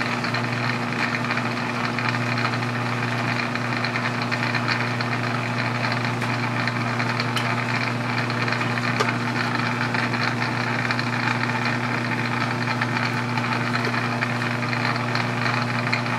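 Metal lathe running while a single-point tool cuts a square thread on the shaft: a steady low machine hum with a continuous noisy layer of gearing and cutting over it.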